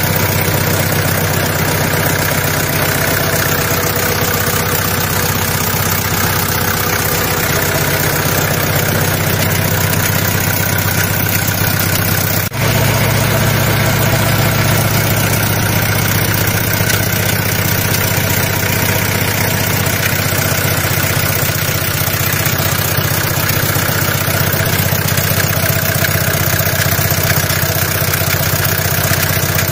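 Daihatsu Taft engine idling steadily. A brief drop-out comes about twelve seconds in, after which the low hum is a little stronger.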